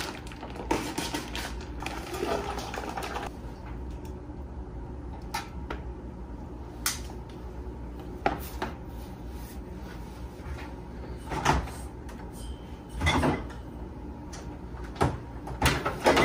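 Kitchen handling noise: a plastic bag rustling for the first few seconds, then scattered light clicks and knocks as chicken pieces go onto a wire rack on a metal sheet pan and the tray is handled, with a few louder knocks later on and the refrigerator being opened near the end.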